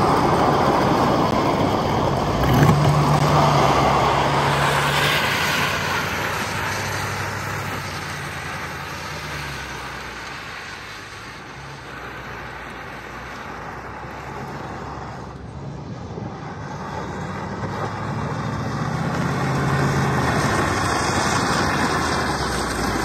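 Truck engine running as it tows a jon boat across the ground, fading as it moves away and growing louder again as it comes back.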